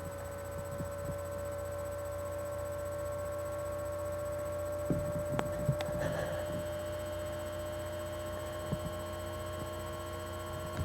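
Steady electrical mains hum, with a few faint soft bumps and two small clicks about halfway through.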